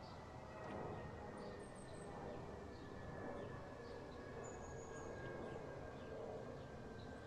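Faint background ambience: a low even hiss and rumble with scattered short high chirps and a thin steady high tone that drifts slightly lower.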